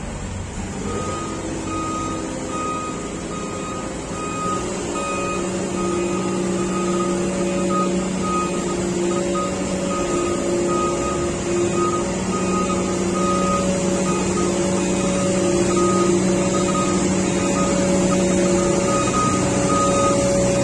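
Diesel engine of a pneumatic-tyred asphalt roller running and drawing closer, growing steadily louder. Over it a backup alarm beeps evenly, about three beeps every two seconds, starting about a second in.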